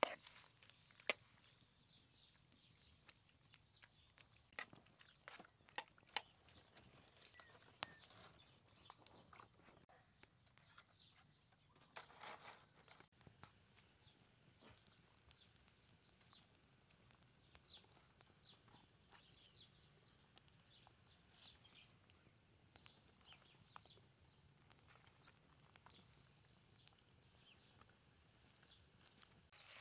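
Quiet wood fire burning, with scattered sharp crackles and pops from the burning sticks.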